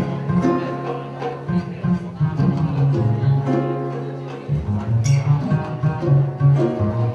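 Live acoustic band playing an instrumental passage: plucked acoustic guitars over sustained upright-bass notes, with occasional hand-drum strokes.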